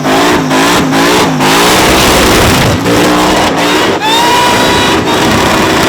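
Supercharged one-tonner's engine revved hard in quick repeated rising blips, then held at high revs from about four seconds in, with a steady high supercharger whine over the engine note.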